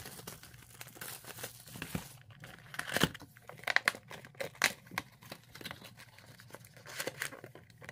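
Cellophane shrink wrap crinkling and tearing as it is pulled off a trading-card hobby box, with irregular crackles throughout, loudest about three seconds in. Near the end the box's cardboard lid is torn open and folded back.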